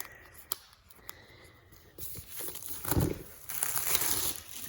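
Packaging wrap on a MacBook Air box being torn and crinkled off: a few light clicks, then rustling and tearing that grow loudest about three seconds in.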